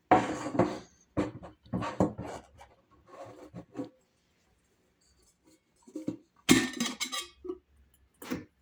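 Electric kettle and its parts being handled while it is unpacked: a string of irregular knocks, clinks and rustles, with a louder cluster a little after six seconds in.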